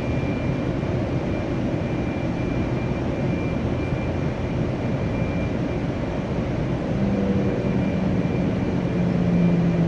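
Light rail train running, heard from inside the car: a steady rumble with a faint high whine. About seven seconds in, a low hum comes in and drops slightly in pitch.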